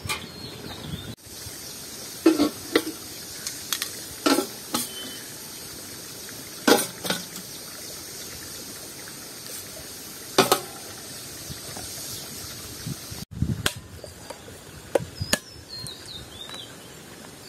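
Kitchen utensils knocking and clinking, a dozen or so sharp strikes at irregular intervals over a steady hiss, with a few faint high chirps near the end.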